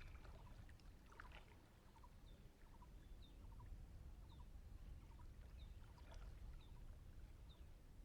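Faint steady low rush of river water, with short high chirps repeating about once a second from a small bird.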